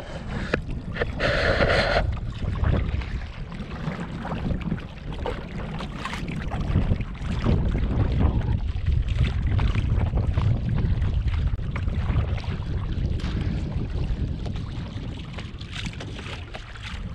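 Wind buffeting the microphone of a kayak-mounted camera, over water sloshing and splashing against a paddled kayak's hull in irregular small splashes. A short higher-pitched sound comes about a second in.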